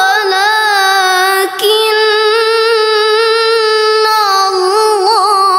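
A girl's voice in melodic Quran recitation (tilawah), drawing out long held notes with a brief break about one and a half seconds in. Near the end she adds quick wavering ornaments.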